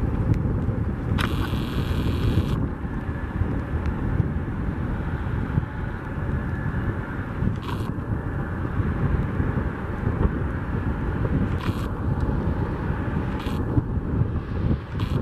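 Airbus A321-211's CFM56-5B engines rumbling steadily as the jet rolls out on a wet runway after touchdown, with wind buffeting the microphone. A brief hiss comes about a second in.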